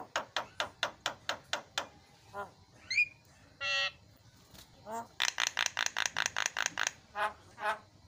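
Javan myna (jalak kebo) calling a varied song. It opens with a quick run of about nine harsh notes, then gives a short rising whistle and a trilled note. About five seconds in comes a faster, louder run of harsh chattering notes, followed by a few single notes near the end.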